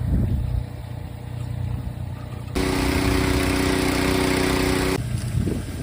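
Water-leak hiss, as heard through a leak-detection listening device: a loud steady hiss with a low steady hum starts abruptly a bit over two seconds in and cuts off suddenly near the end. Underneath, an engine idles with a steady low hum.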